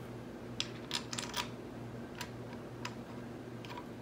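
Light, scattered metallic clicks and ticks as a bolt is handled and threaded by hand into the ATV's rear brake caliper and brake stay, with a quick cluster of clicks about a second in, over a steady low hum.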